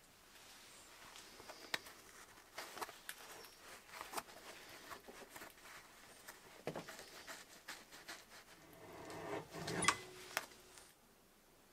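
Cast white-metal lure being twisted and worked along a thin metal wire clamped in a vise: scattered small metallic clicks and scrapes, building to a longer scrape that ends in a sharp click about ten seconds in as the lure comes off the wire.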